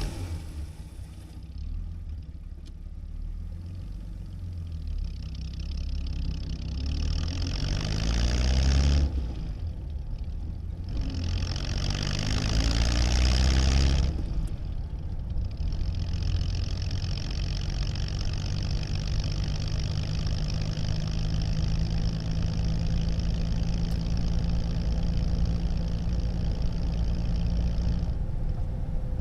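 1937 Plymouth's flathead six-cylinder engine heard from inside the car, idling, then pulling away: the engine note rises twice with a sudden drop between, as the car shifts up through the gears, then settles into steady running that changes near the end.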